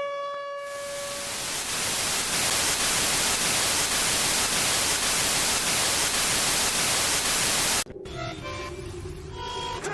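Loud, even electronic static hiss like a dead TV channel, rising in over the first second as a buzzing alert tone fades away, then cutting off abruptly about eight seconds in. Faint music with short tones follows.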